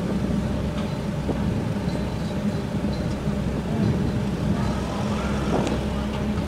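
Steady low engine drone with a constant hum from the berthed car ferry MV Sorrento's engines running.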